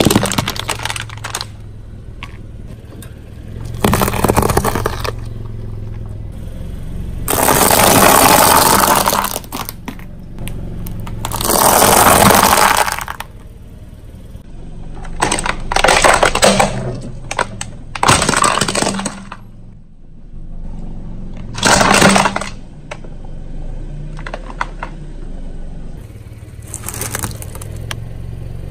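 A car tyre rolling over and crushing brittle objects, aluminium drink cans and then dry pasta tubes, in a series of crunching, cracking bursts several seconds apart. The car's engine idles steadily underneath.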